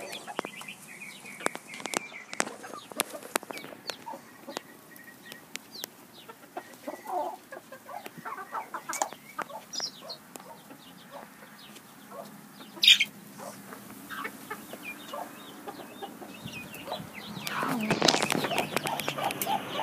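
Chickens clucking softly while pecking, with many sharp taps, and a louder rustling stretch with more clucking near the end.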